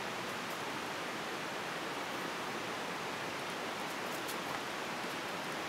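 Steady, even rushing noise with no distinct events, plus a few faint high clicks about four seconds in.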